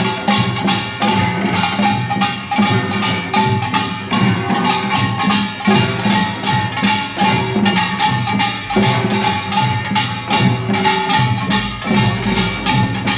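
Korean pungmul percussion band playing a fast, steady rhythm: dense rapid strikes of small gongs and drums, with held pitched notes sounding above them.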